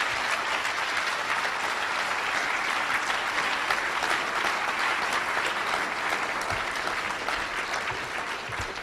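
Audience applauding steadily in a lecture hall, tapering off near the end.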